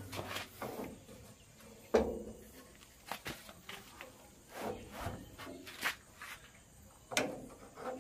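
Irregular metallic knocks and rattles from a steel fuel-tank strap and its rod being handled and fitted against a truck's fuel tank, with the sharpest knocks about two seconds in and near the end.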